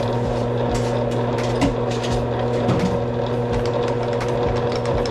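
Lathe running with a steady motor hum, with intermittent scratchy scraping as sandpaper is held against the inside of the spinning steel grinder dog to take off rust.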